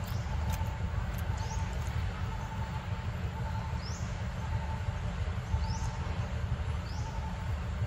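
Forest ambience: a small creature repeats short, high, rising chirps every second or two over a pulsing mid-pitched buzz, beneath a steady low rumble.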